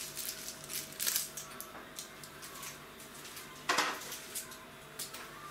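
Metal bread-baking form and lid being handled with towels and set aside. There are a few light clinks about a second in and one louder metallic knock later on.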